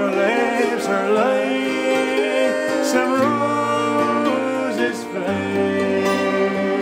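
Acoustic folk band playing a slow ballad: a man sings over strummed mandolin and acoustic guitar.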